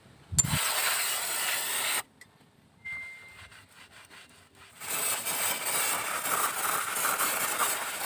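Aerosol brake cleaner spraying onto the brake caliper and hub in two long hisses, the first about a second and a half long and the second about three seconds. Quieter wiping with a rag comes between them.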